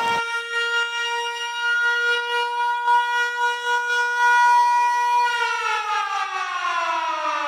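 A loud siren-like whistle sounding one steady note for about five seconds, then sliding steadily down in pitch.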